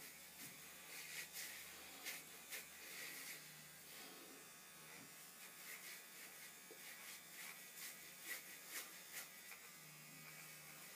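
Battery-powered Neutrogena facial exfoliator buzzing faintly as its pad is worked in circles over wet skin, with soft, irregular rubbing strokes.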